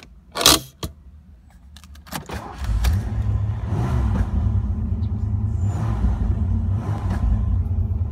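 A short loud clatter as the parking brake handle is worked, then about two seconds in the 1985 Ford Mustang LX's engine starts and settles into a steady low rumble, heard from inside the cabin.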